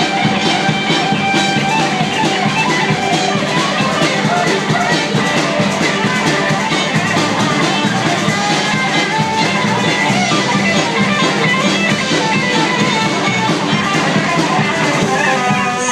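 Live rock band playing an instrumental passage: electric guitar over bass and drum kit, steady and loud throughout.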